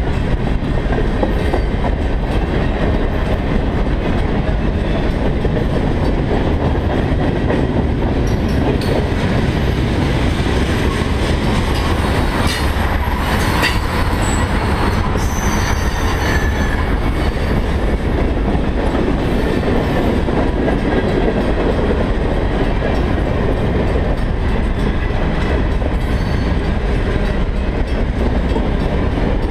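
Freight train cars, boxcars and tank cars, rolling past close by with a steady, loud rumble and clatter of wheels on rail. A brief high-pitched wheel squeal comes a little past halfway.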